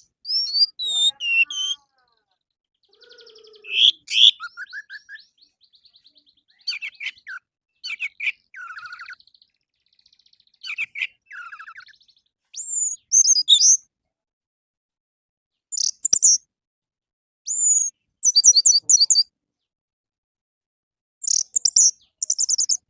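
Orange-headed thrush singing: a string of varied phrases of whistled sweeps, buzzy trills and quick chirps, separated by short pauses.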